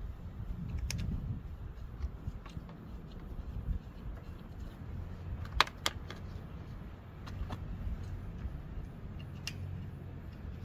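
Small metal clicks and taps as the valve cover screws are set in place and threaded into a lawn mower engine, with two sharper clicks in quick succession about five and a half seconds in, over a low steady hum.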